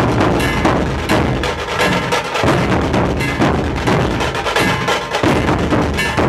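Nashik dhol ensemble: many large dhol drums beaten together in a loud, driving rhythm, with deep booming beats and sharp cracking strokes over them.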